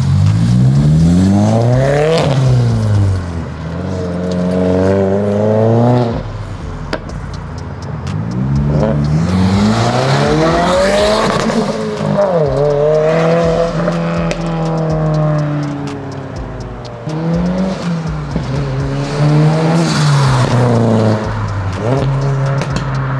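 2022 Subaru WRX's turbocharged 2.4-litre flat-four, breathing through a Rae Motorsports titanium intake, accelerating away through several gears. The revs climb and drop back at each shift, hold steady for a few seconds mid-way, then climb again.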